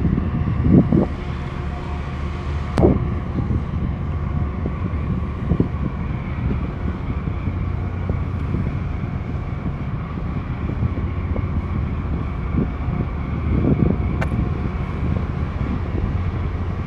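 Low, steady diesel engine drone from a harbour tug and the container ship it is working alongside, with a few brief gusts of wind buffeting the microphone and two sharp clicks.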